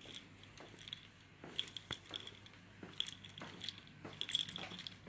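Faint, irregular clicks and rustles of someone walking while holding a phone, with a light jingling that grows louder near the end.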